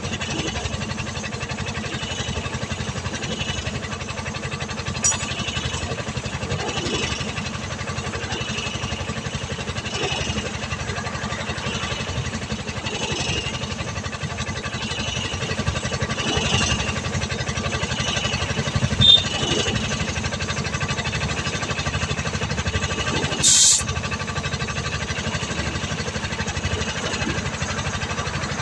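An engine running steadily with a low, even rumble, and a short, sharp high-pitched hiss about three-quarters of the way through.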